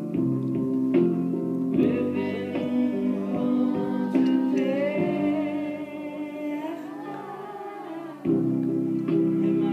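A group of voices singing a song over instrumental accompaniment, softer for a couple of seconds past the middle, then fuller again.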